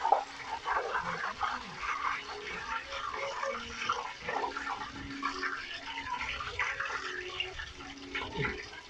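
Hot cooking oil sizzling and crackling as a deep-fried pork leg is lifted out of the pot after its first fry, with a sharp clink of a metal utensil against the pot just after the start.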